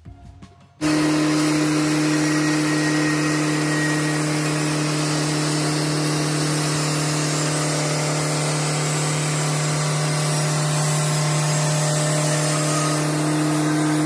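Timber King 2000 portable band sawmill running at a steady engine speed, a constant hum under the noise of the saw; it cuts in suddenly about a second in.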